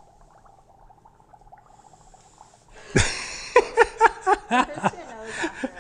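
Faint crackly bubbling of dry ice in a cup of water. About three seconds in, a person's voice breaks in with a run of short, loud, pitched bursts, a few a second.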